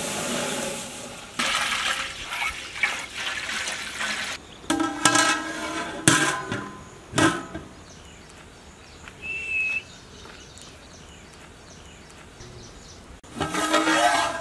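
Water poured from a steel pot into a large metal cooking pot: a splashing rush for the first few seconds. Then several sharp metal knocks with a ringing tone follow, and the pot's metal lid clatters and rings near the end.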